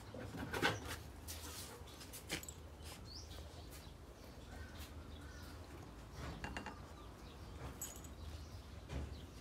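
A small white puppy nosing and pawing at the foot of a closed wooden door to be let in, giving a few faint clicks and scuffs, with a few faint thin squeaks now and then.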